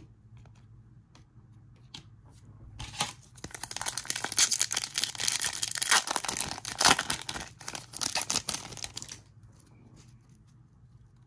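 Trading-card pack wrapper being torn open and crinkled, a dense crackling that starts about three seconds in and stops about six seconds later, with a few faint card clicks before it.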